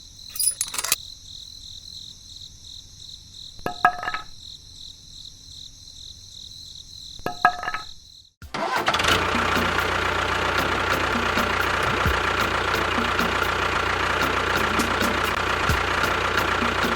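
An engine running steadily from about halfway through, dense and even with a strong low rumble. It is preceded by a quieter stretch with a steady high whine and three short pitched sounds.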